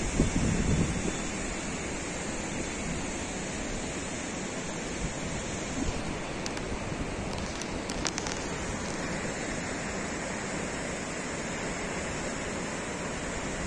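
Steady rushing of a fast white-water river, with wind buffeting the microphone, strongest in the first second.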